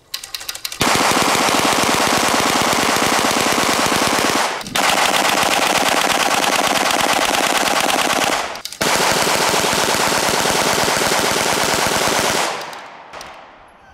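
Hand-cranked Tippmann Armory 9mm Gatling gun firing rapid continuous full-auto bursts, loud. The firing comes in three long stretches split by two brief breaks, and near the end the reports fade off into echo.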